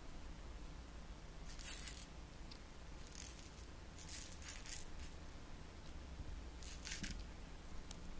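Toy rattle shaken in short bursts, about four times, a dry high-pitched shaking.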